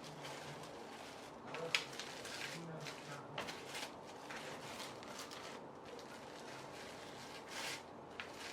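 Plastic wrapping rustling and crinkling in short bursts as it is handled, with a sharp click a little under two seconds in.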